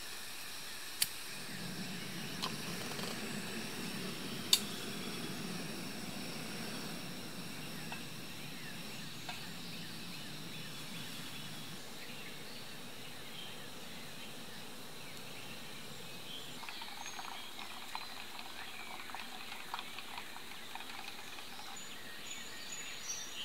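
A screw-on gas canister backpacking stove being lit: two sharp clicks, about a second and four and a half seconds in, then the burner's steady low rush of flame for several seconds.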